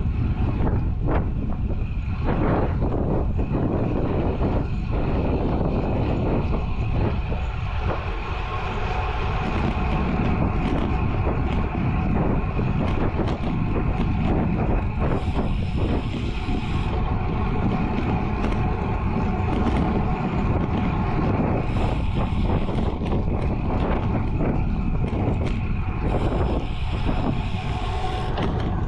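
Wind rushing over a bike-mounted action camera's microphone as a road bike rides at about 30 km/h, with its tyres rumbling on asphalt. A steady low buffeting noise is broken by a few short stretches of higher hiss.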